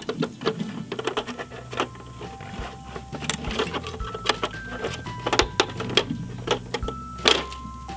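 Irregular hard plastic clicks and rattles from a Bruder recycling toy truck's levers and lid being worked by hand, over background music of held notes.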